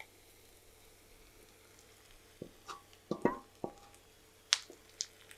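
Wooden spatula stirring mashed potato in a non-stick frying pan: a handful of separate light knocks of the spatula against the pan from about halfway through, a few with a short ring.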